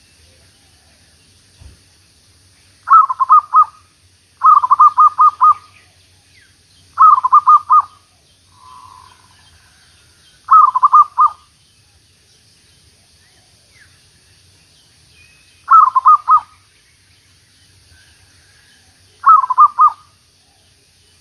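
Zebra dove (merbuk) cooing: six short phrases of rapid staccato coos, a few seconds apart.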